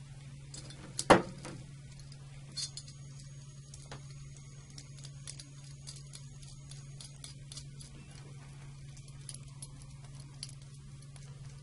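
Small metal handling sounds from a brass Kirk key lock assembly: one sharp knock as it is picked up off the table, then scattered faint clicks and ticks as its locking nut and mounting bracket are handled and tightened. A steady low hum runs underneath.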